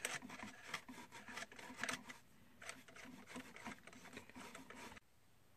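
Faint rubbing and scraping of a cardboard box, with small clicks, as hands handle the packaging and the gauge inside it. The sound stops abruptly about five seconds in.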